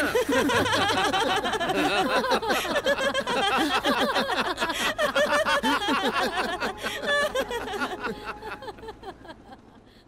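Several cartoon voices laughing and chuckling together, overlapping. The laughter dies away over the last two seconds.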